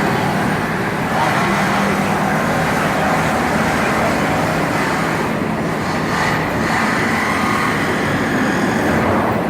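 Loud, steady city-street noise with traffic, dominated by a continuous mechanical noise of unknown source.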